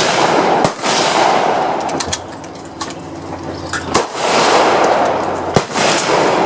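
Rifle shots on an outdoor shooting range. Three loud cracks come a couple of seconds apart, each trailing off in a long rolling echo, with fainter shots in between.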